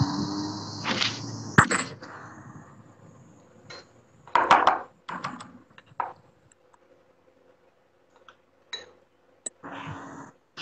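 Kitchen handling noise while frying: scattered clinks and short scraping bursts of utensils and a batter bowl, the loudest about a second and a half in and again just past four seconds. It comes over a video-call connection whose sound drops out between the bursts.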